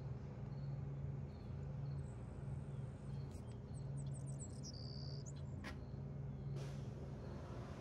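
Steady low machine hum that swells and fades at a regular beat. Faint high chirps come through near the middle, with a couple of soft knocks after them.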